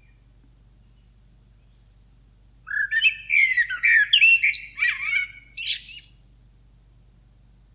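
A blackbird singing one phrase of about three and a half seconds, starting about two and a half seconds in: warbled whistled notes mixed with high, thin twittering.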